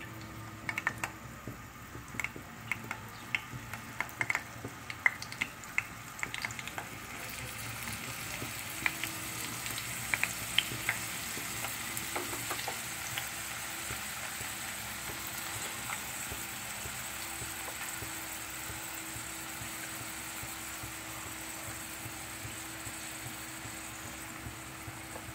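Eggplant and ground-pork mixture frying in hot oil in a pan: scattered sharp clicks and pops for the first several seconds, then a steady sizzle that builds about seven seconds in and holds.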